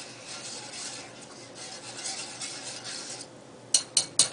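Wire whip stirring cheese sauce in a stainless-steel saucepan, a steady scraping, then three sharp taps of the whip against the pot near the end.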